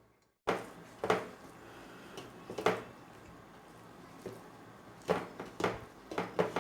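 Eating sounds close to the microphone: a string of about seven short, sharp clicks and taps, spaced irregularly, after a moment of dead silence at the start.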